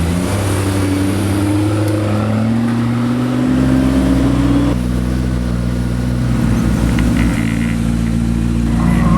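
Supercar engines running in a tunnel, one engine's note rising steadily for a few seconds as it accelerates, then breaking off about halfway through while a lower engine note carries on steadily.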